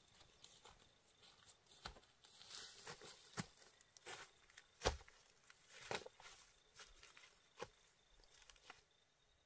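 Faint, irregular knocks and rustles of something being handled, the loudest about five seconds in.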